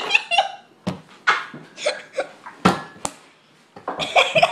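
Two boys laughing in short repeated bursts, with a brief lull a little past three seconds in before a loud burst of laughter starts again.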